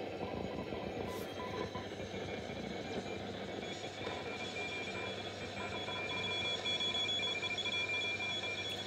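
Philips Stella DB533 valve radio on the shortwave band, its loudspeaker giving a steady hiss of static between stations. From about halfway through, thin high whistles come and go over the hiss.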